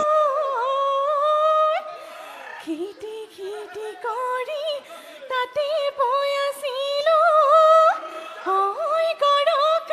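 A high woman's voice singing an unaccompanied, ornamented melody, with slides into the notes and wavering held tones, in short phrases with brief breaks.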